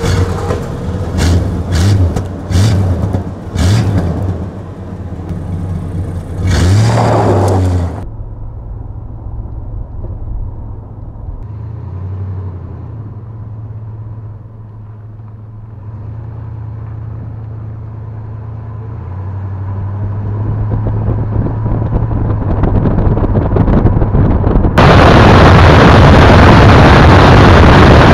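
Dodge Aspen station wagon's 5.2-litre V8 at the exhaust, blipped in several short bursts, then a longer rev rising and falling about seven seconds in. After that it runs steadily under way, slowly getting louder. About three seconds from the end, a loud, even rush of wind on an outside-mounted camera suddenly covers it.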